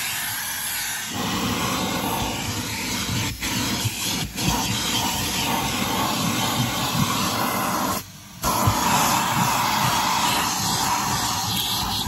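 Henry cylinder vacuum cleaner running, its crevice tool sucking along a van's carpet with a steady rushing hiss. The sound dips twice around three to four seconds in and drops away for about half a second near eight seconds.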